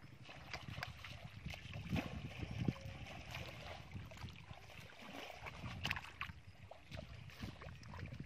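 Shallow muddy water splashing and mud squelching as hands grope in it and feet wade through, in irregular sloshes.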